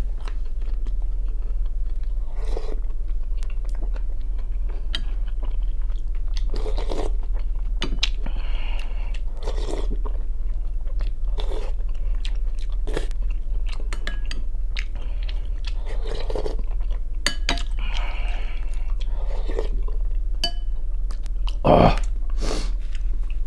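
A man eating creamy chicken kharcho soup close to the microphone: chewing and slurping off a spoon in irregular bursts, with the loudest near the end, over a steady low hum.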